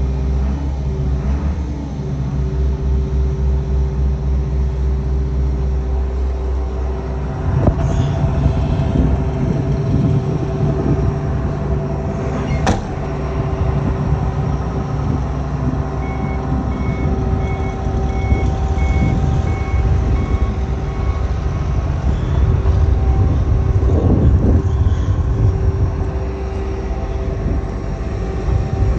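A John Deere 690 hydraulic excavator's diesel engine running steadily, growing louder and rougher about seven seconds in. There is one sharp knock near the middle, and a row of short, high beeps about one and a half a second for several seconds after it.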